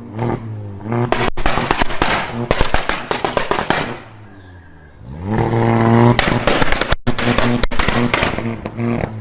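Car engine revving with rapid exhaust pops and crackles. The engine drops away briefly just before the middle, then its pitch climbs again and the popping resumes.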